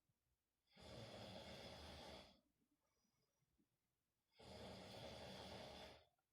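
A man snoring in his sleep: two long, noisy snoring breaths of about a second and a half each, roughly three and a half seconds apart, with near silence between them.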